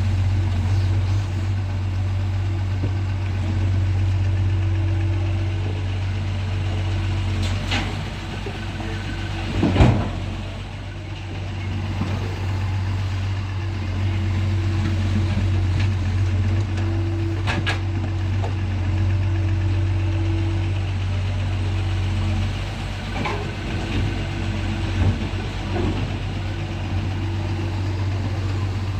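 Heavy diesel engine of a Doosan DX140 excavator running steadily with a low hum while loading soil onto a dump truck. There is one loud thump about ten seconds in and a few lighter knocks later on.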